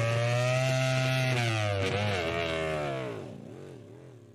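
Aprilia RS-GP MotoGP bike's V4 engine held at high revs during a rear-tyre burnout. About two seconds in, the revs dip and rise in a few wavering swells, and the sound fades away over the last second or so.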